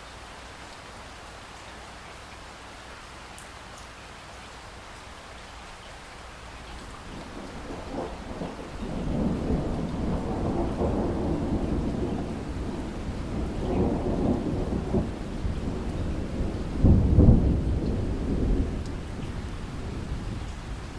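Steady rain falling, then a long roll of thunder that builds from about seven seconds in. The thunder rumbles on for over ten seconds, peaks in a sharper crash near seventeen seconds, then fades back under the rain.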